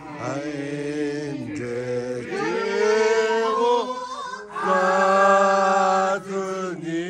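A voice singing unaccompanied, in long held notes that bend and waver in pitch, with short breaks between phrases.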